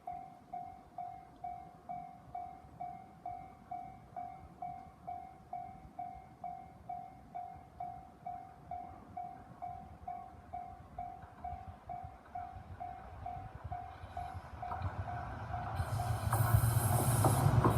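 Japanese railway level-crossing warning bell ringing a steady ding about twice a second. From about fourteen seconds in an approaching JR Minobu Line train's rumble and wheel noise grows, becoming loud near the end and covering the bell.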